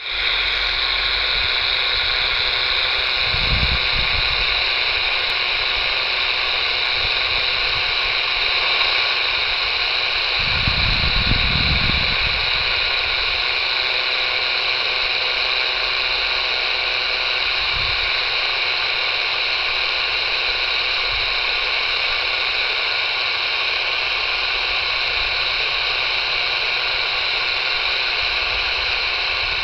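Shortwave static from a Tecsun portable radio's speaker tuned to 9580 kHz, a steady even hiss with no programme audio, because Radio Australia's transmitter is off the air on that frequency. Brief low rumbles come through about 3 seconds in, again around 11 seconds, and once near 18 seconds.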